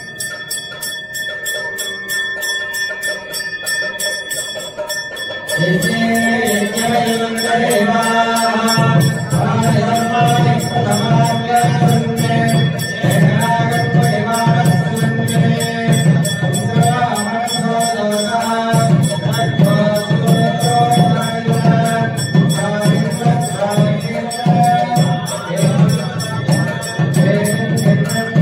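Men chanting temple mantras during a Murugan abhishegam, starting about six seconds in and carrying on steadily, over a fast, even ringing rhythm and a steady high tone.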